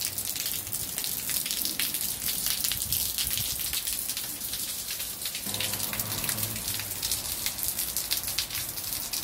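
Rain falling steadily onto wet brick paving: a constant hiss dense with close drop hits.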